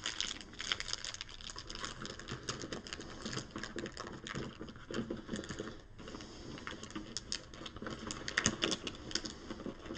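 Plastic bagging crinkling and many light clicks and rattles of small plastic game pieces as bagged parts are handled and pressed into the compartments of a board-game box insert.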